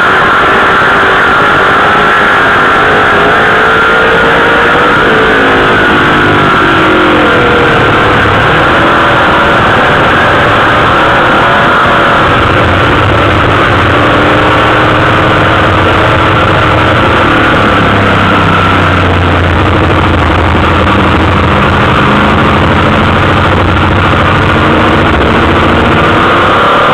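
Dirt late model sportsman race car's engine heard loud from the cockpit, its pitch rising and falling as the throttle is worked in the first part, then running lower and steadier through the second half.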